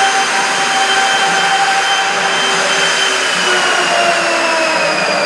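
CNC router's spindle motor running while the machine works through a program: a loud steady rushing noise with a high whine that sinks slightly in pitch about three seconds in.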